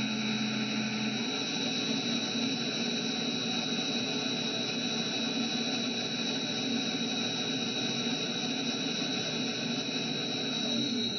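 Friction stir welding machine running, its spinning tool being dragged through an aluminium plate: a steady noisy whir with a steady high whine over it.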